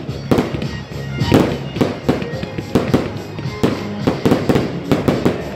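Fireworks bursting in a rapid series of sharp bangs and crackles, several a second, over music.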